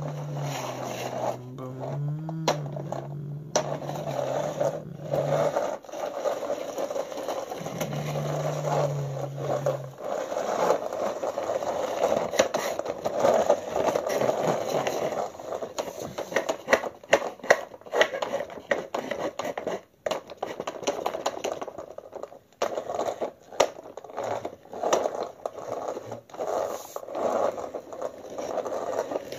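A plastic toy car is pushed back and forth across a hard floor by hand, its plastic wheels making a rough, uneven rolling noise with many small clicks. A low steady hum runs under it for the first several seconds and again briefly a little later.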